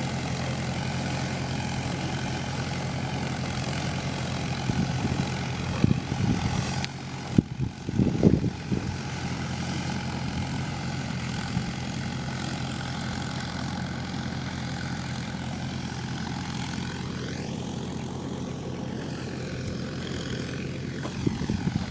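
Homemade tractor's engine running steadily, with a cluster of louder knocks and clatters about six to nine seconds in.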